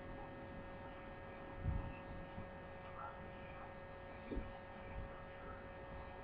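Quiet, steady electrical hum, with a few faint soft thumps from hands pressing biscuit dough into a ball in a glass bowl.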